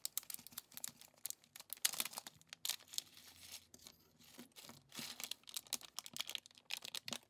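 Metallized ESD shielding bag being opened and crinkled in the hands, a rapid irregular crackling. Small electronic components clatter out onto paper.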